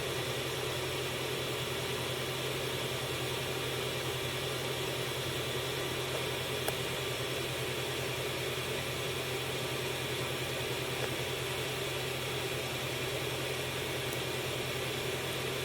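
Steady hum and fan hiss of a CR-10 3D printer running mid-print, with one faint click about halfway through.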